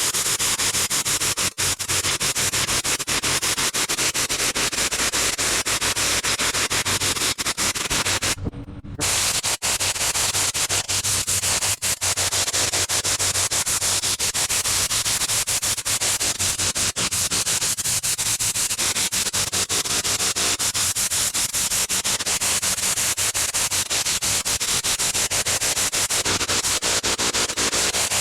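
Pressure washer spraying a pre-treated concrete patio: a loud, steady hiss of water with a low hum underneath, breaking off briefly about eight and a half seconds in.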